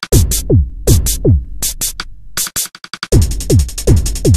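Electronic background music: a drum-machine beat of deep kick drums that drop in pitch, about two and a half a second, with sharp hi-hat and clap hits. About three seconds in, a busier pattern of fast hi-hats comes in.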